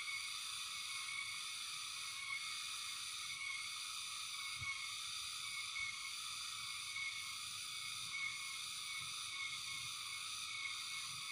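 Steady high-pitched insect chorus, pulsing gently about once a second, with a soft low knock about four and a half seconds in.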